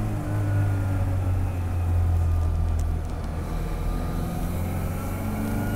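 Classic Mini's A-series engine running with a steady low note, heard from inside the cabin while the car is driven. A faint whine drops and then rises in pitch.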